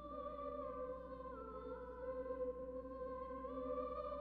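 Music from a film's soundtrack: a wordless choir holding sustained notes that shift in pitch step by step, over a steady low hum.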